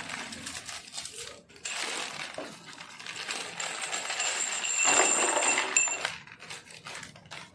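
Plastic packet of metal screws, nuts and bolts crinkling as it is torn open. The hardware clinks and rattles as it is tipped into a cardboard box, loudest about five seconds in.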